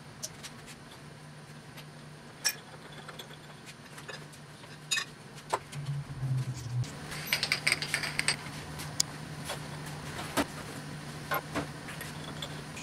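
Metal tools and small steel parts being handled at a milling machine: scattered sharp clinks and knocks, with a brief jangling rattle about two-thirds of the way through, over a steady low hum.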